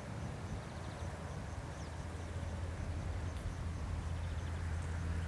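Distant D1 diesel multiple unit approaching, its diesel engine a low steady drone that grows louder toward the end. Faint high chirps repeat about three times a second over it.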